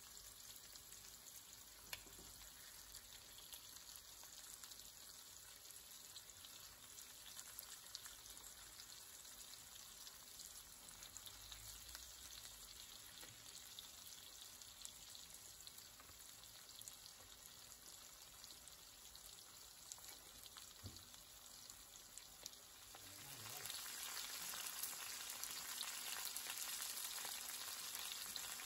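Floured chicken pieces frying in olive oil with garlic: a steady sizzle with fine crackling, which grows louder for the last few seconds.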